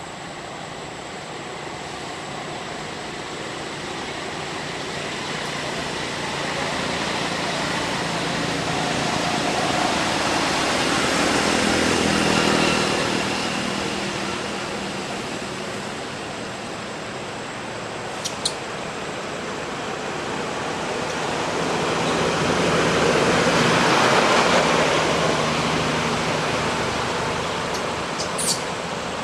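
Road traffic passing: twice the noise of a vehicle swells up and fades away over about ten seconds. Two short sharp clicks come in the second half.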